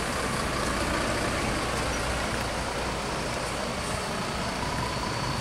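Mercedes-Benz coach's diesel engine running as the bus drives away, a steady low rumble with road noise.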